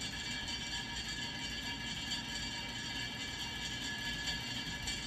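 Casablanca Wilderness ceiling fan running on high speed with a steady scraping, grinding noise and high whining tones. The spiral piece fitted in place of the downlight is rubbing as the fan turns.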